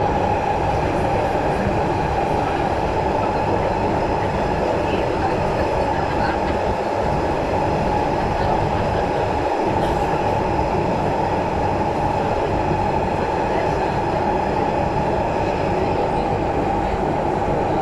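Steady running noise inside an SMRT metro train carriage in motion: an even rumble of wheels on rail and traction equipment, loudest in the low and middle range, holding level throughout.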